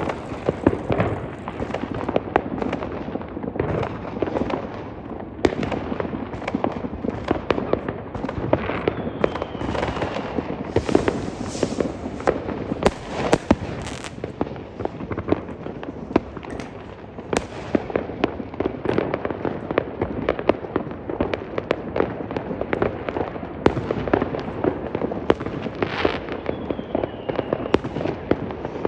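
New Year's Eve fireworks and firecrackers going off continuously, many bangs and crackling pops overlapping with no pause, with a short falling whistle twice.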